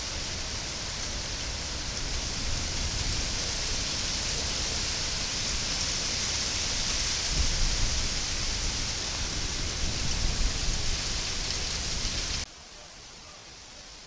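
A steady, loud hiss, strongest in the high range, with a low rumble beneath it. It cuts off abruptly about twelve seconds in.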